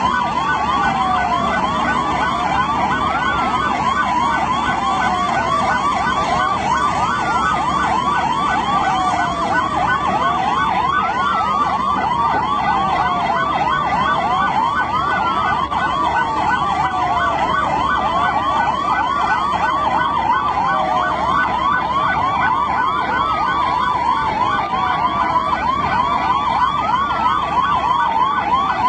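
Several emergency-vehicle sirens sounding at once: a fast warbling wail around one pitch, overlapped by a slower tone that sweeps downward every few seconds.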